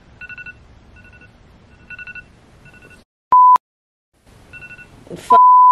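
An electronic phone tone chirps faintly in short trills of rapid beeps, pausing between trills. Two loud flat censor bleeps cut in, a short one about three seconds in and a longer one near the end over a groaned word.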